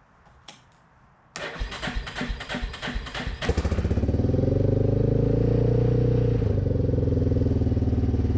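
Yamaha Big Bear four-wheeler's single-cylinder engine cranked by its starter for about two seconds, catching about three and a half seconds in and then idling steadily.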